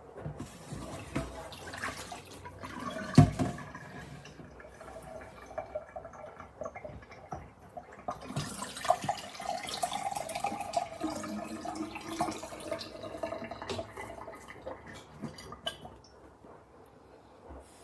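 Water pouring and splashing, with handling clicks and one sharp knock about three seconds in.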